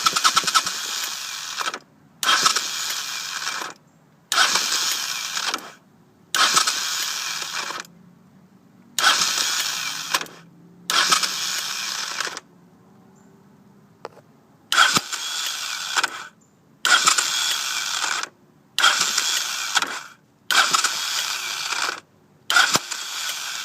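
Electric starter on a 1983 Honda VT500c V-twin, pressed about eleven times in a row, each time making a harsh grinding, ratcheting whirr of about a second and a half that cuts off, and the engine does not catch. The owner takes this for a failing starter clutch that does not grab reliably, possibly worn springs.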